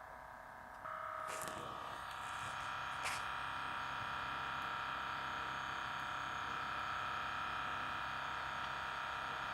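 HP laptop cooling fan running with a steady whine, the fan noise it came in for repair with; the whine steps up about a second in, with a couple of light clicks shortly after.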